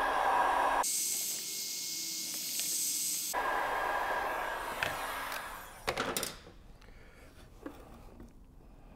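Heat gun blowing steadily, softening the end of a rubber vent hose. It is switched off with a click about six seconds in, and a few faint handling clicks follow.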